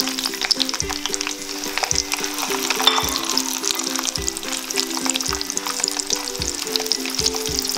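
Hot cooking oil sizzling and crackling steadily as whole red chilies, shallots and garlic cloves deep-fry in a pan, with background music underneath.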